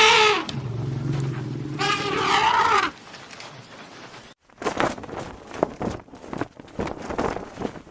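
Animal calls: two wavering pitched calls with a low hum between them, ending about three seconds in, then a run of irregular short sharp sounds.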